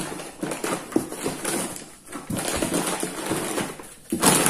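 Plastic food packets crinkling and rustling with light knocks as instant-noodle packs and cups are handled and lifted out of a box, pausing briefly about two seconds and again about four seconds in.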